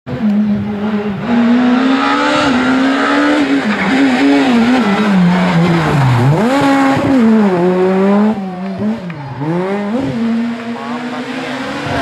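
Rally car engine revving hard through a stage corner. Its note rises and falls with gear changes, dips deeply and climbs back up twice, about six and nine seconds in, then runs steadier near the end.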